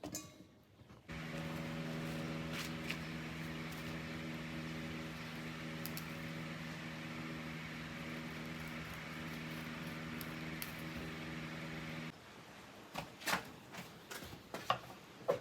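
A small electric motor hums at a steady pitch for about eleven seconds, switching on about a second in and cutting off abruptly. A few sharp knocks follow near the end.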